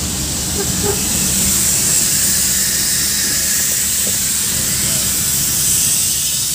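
Vehicle engine running with road and wind noise, heard from inside the cab while driving: a steady low drone under a strong, even high hiss.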